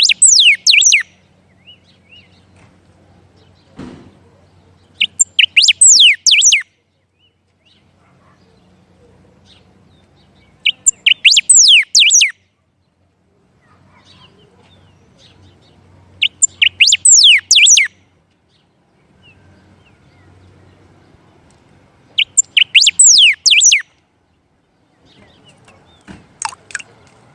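A songbird singing the same short phrase over and over: a quick run of high, sharply falling notes lasting about a second and a half, repeated five times about every five to six seconds.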